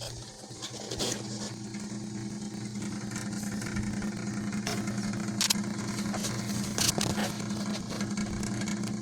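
A vehicle engine starts about a second in and runs with a steady hum, with a few sharp clicks over it.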